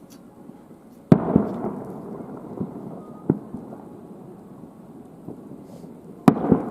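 Aerial firework shells bursting: a sharp boom about a second in, quickly followed by a second, another around three seconds in, and two more near the end, each trailing off in a long rumbling echo.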